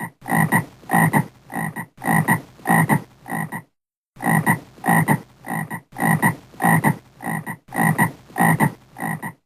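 Frog croaking in groups of three short croaks, each group cut off by a brief silent gap and then repeating, stopping just before the end.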